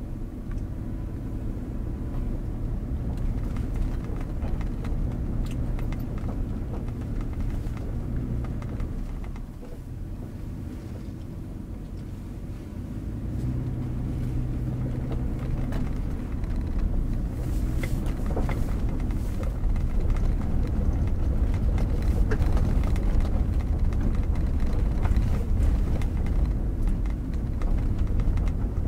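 Cabin noise of a 2017 Toyota 4Runner with its 4.0-litre V6 driving on a dirt road in high-range four-wheel drive: a steady engine and tyre rumble that grows louder partway through, with a few sharp clicks and knocks about two-thirds of the way in.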